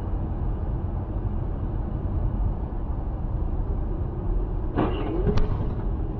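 Steady road and engine rumble of a car driving at speed on a highway, picked up by a dash cam inside the car's cabin. About five seconds in, a short pitched sound slides down and back up and holds, with a sharp click just after.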